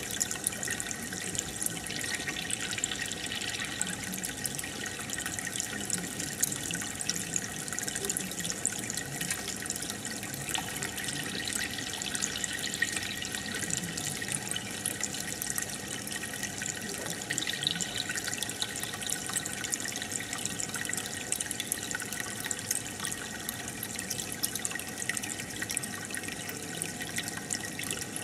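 Aquarium filter pump stirring the tank water: a steady bubbling and trickling, dotted with many small bubble pops, with a faint steady hum from the pump.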